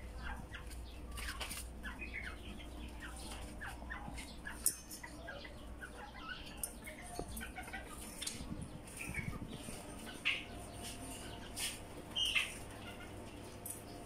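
Chickens and other caged birds calling: many short scattered chirps and clucks, with a few sharp clicks.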